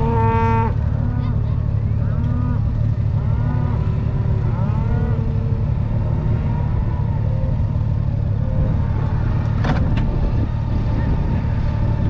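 Cattle mooing and bawling several times, mostly in the first half, over the steady low running of a Honda Goldwing F6B's flat-six motorcycle engine. A short sharp sound comes near the end.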